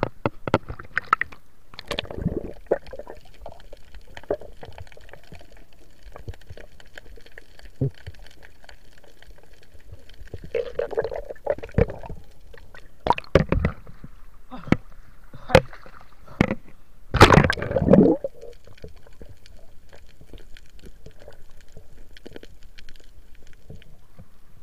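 Water sloshing and gurgling around a camera at and under the surface, with scattered splashes and knocks; the loudest burst comes about two-thirds of the way through.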